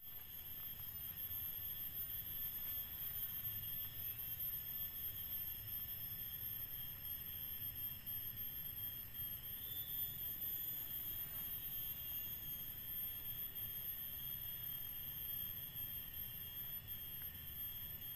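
Insects in the surrounding tropical vegetation keep up a steady, high-pitched droning chorus of several thin tones, over a low rumble.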